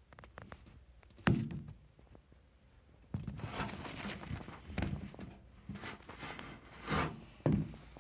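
A single loud thump about a second in, then several seconds of rustling handling noise broken by a few more knocks.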